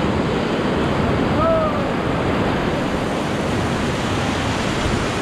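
Whitewater river rapids rushing and churning steadily around an inflatable raft. A short call from a person rises and falls about a second and a half in.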